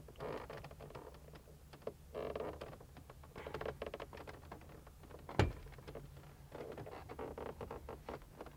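Plastic dash trim panel around a car radio being pried loose by hand: rubbing and creaking plastic with many small clicks, and one sharp snap about five and a half seconds in.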